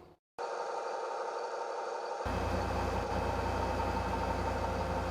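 Lobster boat's engine running steadily, with a deeper low rumble coming in abruptly about two seconds in.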